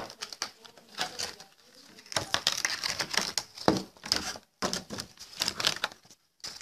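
Cardboard box and packaging rustling and scraping as a desktop microphone is lifted out of it, with irregular clicks and knocks of handling; the sound drops out briefly twice near the end.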